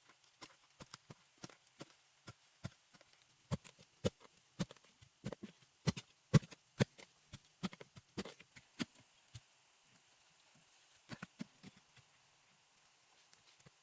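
A series of irregular knocks and taps, a few a second, loudest midway, pausing briefly before a few more near the end.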